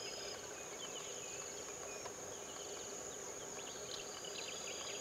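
Steady, high-pitched insect drone, with scattered short bird chirps.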